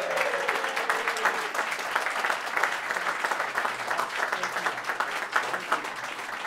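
Audience applauding steadily, with a voice calling out briefly over the clapping in the first second.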